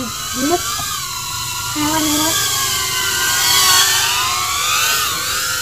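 Micro FPV drone's brushless motors whining, the pitch wavering up and down with throttle and swelling loudest around three and a half to four seconds in.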